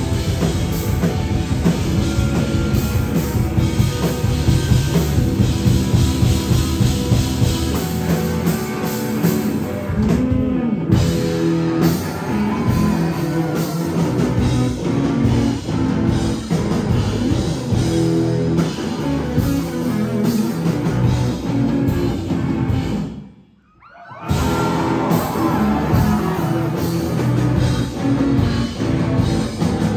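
Live rock band playing: drum kit, bass and electric guitar going steadily. About three-quarters of the way through, the music drops out briefly for under a second, then comes back in with guitar at the front.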